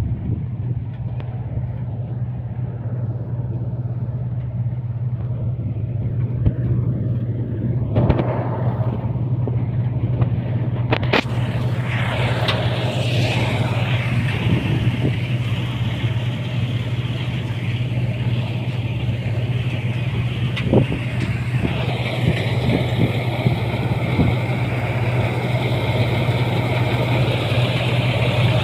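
Engine of a small tractor-mounted wheat harvester running steadily under load as it cuts, with a constant low hum. A higher hiss and clatter from the machine joins in a little before halfway and grows stronger in the last few seconds.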